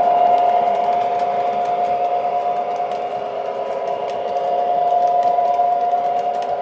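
O scale model passenger train running along the track, a steady mechanical hum with light scattered clicking from the wheels on the rails.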